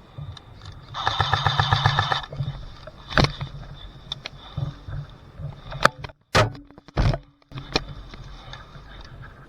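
Airsoft gun firing a rapid burst of evenly spaced shots lasting just over a second, starting about a second in. Several separate sharp cracks or knocks follow over a low steady rumble.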